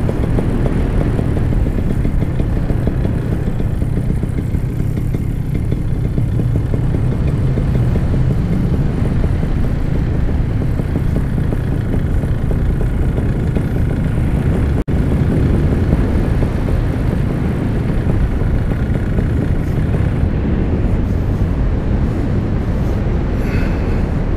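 Paramotor in flight: its engine running steadily under a loud rush of wind on the microphone.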